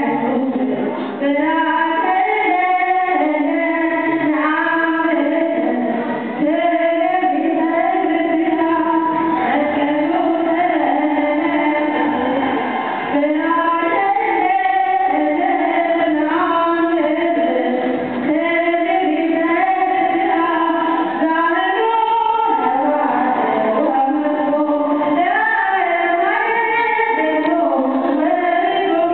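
A group of voices singing an Ethiopian Orthodox hymn together in long, held notes that step between pitches.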